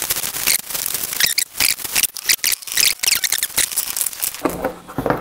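Bubble wrap and plastic packaging crinkling and rustling in quick irregular snaps as it is cut open with a penknife and pulled off a radiator, with cardboard handled near the end.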